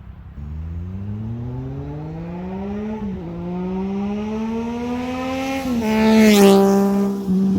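Triumph Street Triple 765 RS's three-cylinder engine through an SC Project S1 exhaust, accelerating hard up through the gears. The pitch climbs steadily and dips briefly at two gear changes, and the sound is loudest as the bike passes close, a little after six seconds in.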